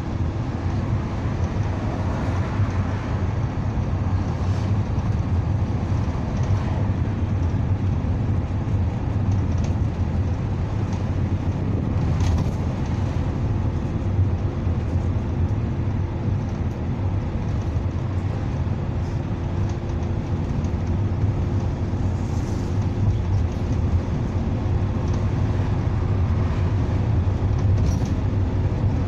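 Cabin noise inside a NefAZ city bus cruising along a highway: a steady low engine drone with road and tyre noise. A faint steady hum sits above the drone, and there are a few faint clicks or rattles.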